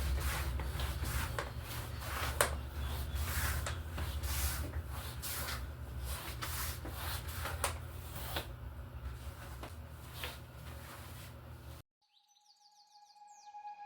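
Fabric chair covers being pulled off chairs: irregular rustling and rubbing over a steady low hum. The sound cuts off near the end and gentle music begins.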